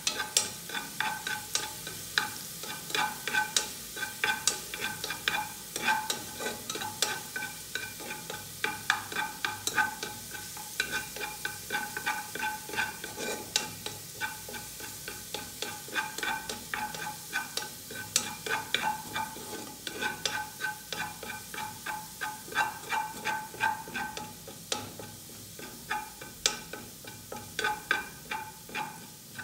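A spatula scrapes and taps around the bottom of a pressure cooker pot, a few strokes a second, as garlic sautés in a little oil with a light sizzle underneath.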